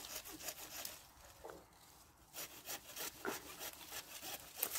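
Hand pruning saw cutting through a green apple branch in short back-and-forth strokes, faint, stopping for a moment about halfway and then going on.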